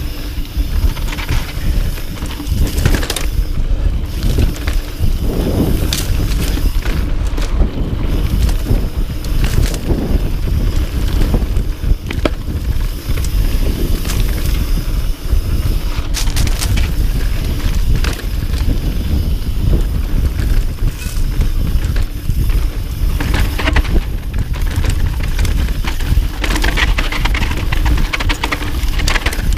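Mountain bike riding fast down a dirt singletrack: tyres rolling on dirt and the bike rattling and knocking over bumps, with a steady low wind rumble on the camera mic.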